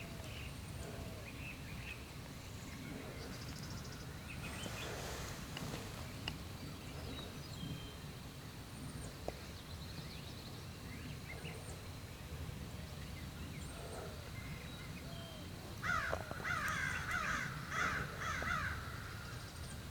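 Wild birds calling in the open, scattered and faint at first, with a loud flurry of short harsh calls near the end.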